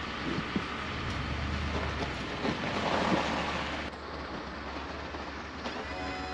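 A vehicle engine idling steadily under a constant outdoor hiss.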